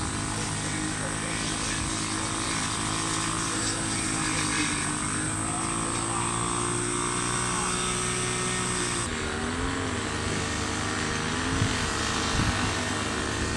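Steady motor drone with evenly spaced low hum lines and a high whine that cuts off suddenly about nine seconds in.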